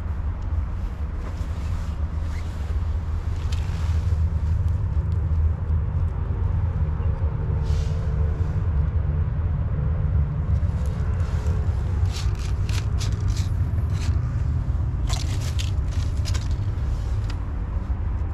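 Steady low outdoor rumble throughout. In the second half comes a run of sharp dry crackles from the dry leaves and paper the tabby cat lies in as it shifts and gets up.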